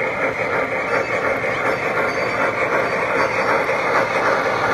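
Model steam locomotive and its train of cars running past on the layout track, a steady rolling and running noise, over the constant chatter of a crowded hall.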